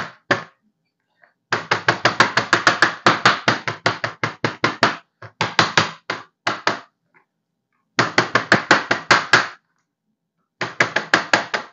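A cleaver strikes chicken breast slices rapidly on a plastic cutting board, flattening them. The strikes come at about five or six a second, in four runs with short pauses between.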